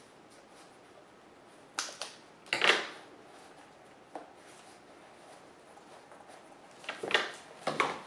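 Scissors snipping through the fabric cover of a donut-shaped cushion to free the foam inside: a few short cuts in two groups, about two seconds in and again about seven seconds in, with a faint click in between.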